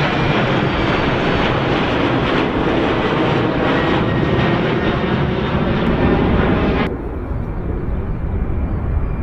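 Jet airliner's engines running loud as the plane passes close by. About seven seconds in the sound cuts off abruptly to a quieter low rumble.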